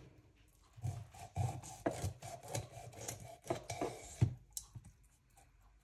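A knife cutting a kakila (freshwater garfish) into pieces: irregular rasping strokes through the flesh, with sharper knocks about two seconds in and twice near four seconds.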